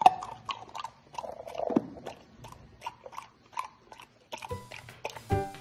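Golden retriever puppy chewing: a run of small irregular mouth clicks and crunches, several a second. Music comes in near the end.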